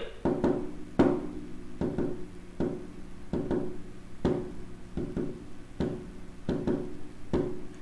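Heart sounds with a fourth heart sound, an atrial gallop: a repeating 'Ten-nes-see' cadence in which S4 and S1 come close together and S2 follows, about one cycle every 0.8 s, over a faint steady hum. A fourth heart sound is always pathological, the sign of a stiff, hypertrophied ventricle under pressure overload.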